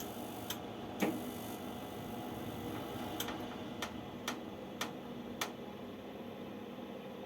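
Navien Deluxe S wall-mounted gas boiler running with a steady hum, over which come sharp irregular ticks, a few at first and then a run of about one every half second. The ticking is the extraneous noise the boiler is making.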